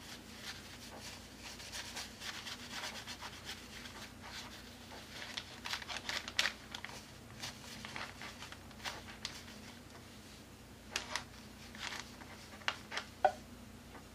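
Brush sweeping loose metal leaf flakes across tacky adhesive on a paper journal page: faint, irregular scratchy rustling strokes, busiest about halfway through and again near the end.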